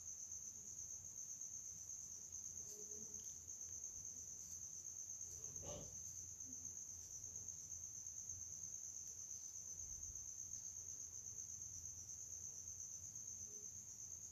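Faint steady high-pitched background tone with low hiss, unchanging throughout, and one brief soft sound about six seconds in.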